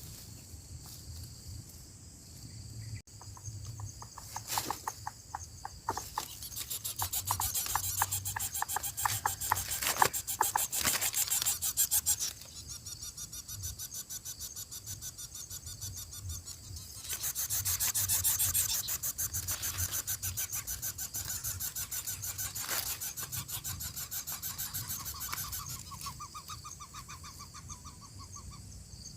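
Lesser coucal nestlings begging with fast, rasping calls, in two long bouts, typical of chicks competing for food brought to the nest.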